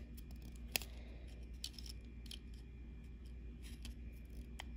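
A few light plastic clicks and handling taps as a power switch and its red-and-black leads are pressed into a plastic receiver box, with one sharper click about three quarters of a second in.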